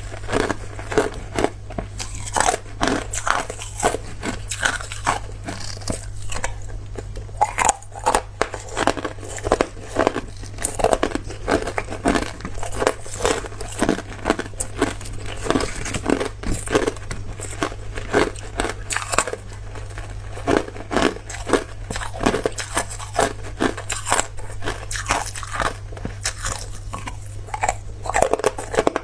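Person biting and chewing hard clear ice: a rapid, irregular run of close, sharp crunches, several a second, over a steady low hum.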